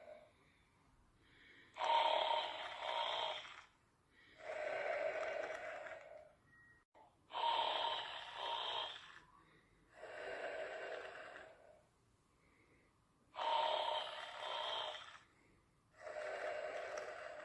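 Slow, rhythmic snoring of a sleeper. Each breath cycle is a two-part snore followed by a longer, lower one, repeating about every six seconds, three times over.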